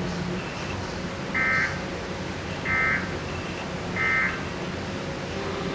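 Emergency Alert System end-of-message signal: three short bursts of SAME digital data tones about a second apart, marking the end of the alert. They sound over a steady background hiss.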